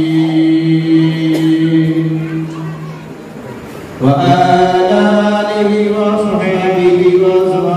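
A man chanting an Arabic invocation in long drawn-out notes: one held note fades out about three seconds in, and after a short lull a new held note starts about four seconds in and climbs in pitch.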